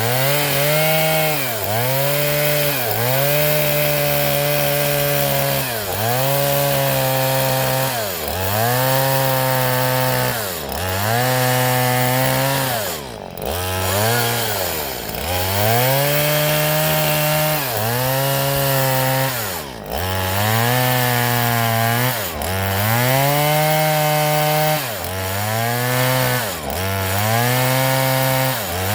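Two-stroke chainsaw sawing coconut wood into slats. The engine runs at high revs and its pitch drops sharply and climbs back every second or two, over and over.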